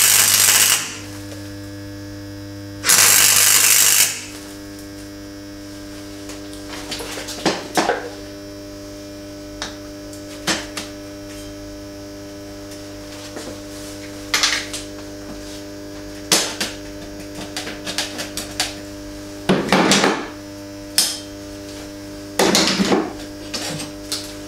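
MIG welder laying two short tack welds on a steel tube frame, each a crackling hiss of about a second, at the very start and about three seconds in. A steady electrical hum continues throughout, while quick-release bar clamps are released and the steel parts click and clank as they are handled, with longer clattering about twenty and twenty-three seconds in.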